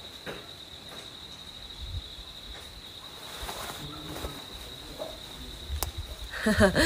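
Insect trilling steadily at one high pitch, unbroken. A woman starts speaking near the end.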